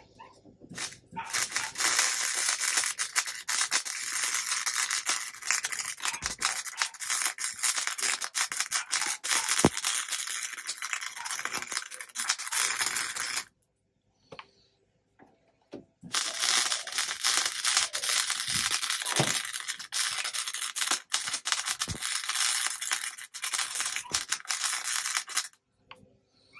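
Arc welding on a truck's sheet-metal floor pan: the steady crackle of the welding arc. It runs in two long welds with a short pause between them about halfway through, and stops shortly before the end.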